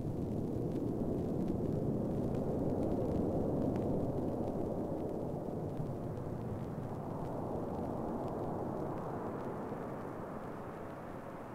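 A steady low rumble of noise that slowly grows fainter near the end.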